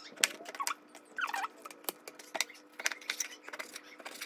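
Chef's knife slicing through raw beef eye fillet and tapping a plastic cutting board: a series of irregular sharp clicks and knocks. A brief high squeak rises and falls about a second in.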